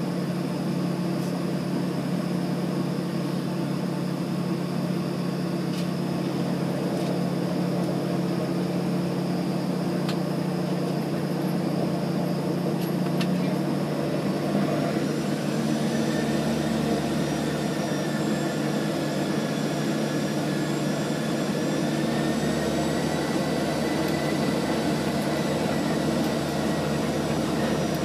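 Steady drone of a small airliner's engines heard from inside the cabin while it taxis, with a low hum and a thin whine above it; about halfway through a higher whine comes in and rises slightly.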